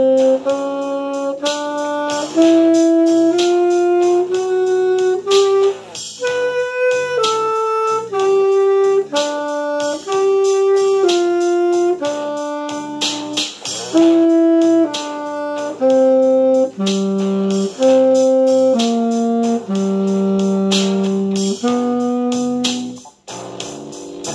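Tenor saxophone playing a blues melody as a string of held notes, the playing stopping near the end.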